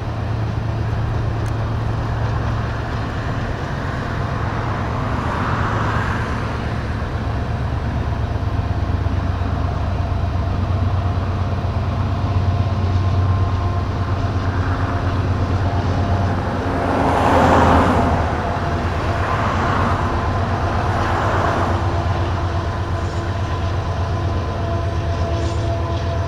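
Steady low drone of a vehicle driving on a highway, with a few rushing swells, the loudest about two-thirds of the way through.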